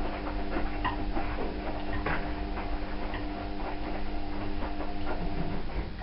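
Light clicks and knocks of a Hotpoint tumble dryer's control-panel parts and push-on tabs being handled, over a steady hum that stops near the end.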